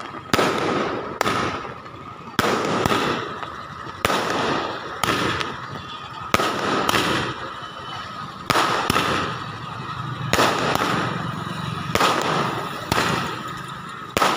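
Firecrackers going off in an irregular run of loud, sharp bangs, roughly one a second, each trailing off in a short echo.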